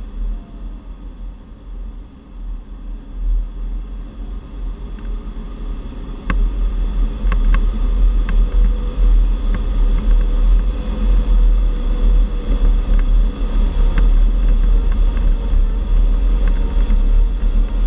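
Airflow rushing past a G103 Twin Astir glider's canopy, heard in the cockpit as a steady hiss over a heavy low rumble, growing louder about six seconds in. A faint steady tone runs underneath, with a few sharp ticks.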